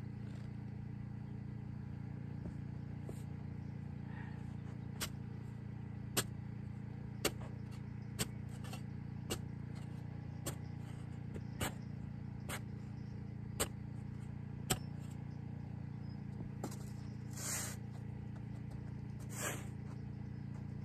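Shovel blade striking sandy soil, sharp clicks about once a second, then two longer scrapes of the blade through the sand near the end, over a steady low hum.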